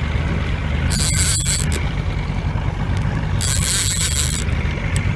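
Boat engine running steadily, a low rumble, with two short high hissing rasps about a second in and again near the end.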